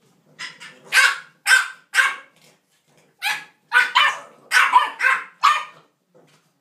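English bulldog puppies barking in play: a run of short, sharp barks, a pause of about a second, then a second, quicker run.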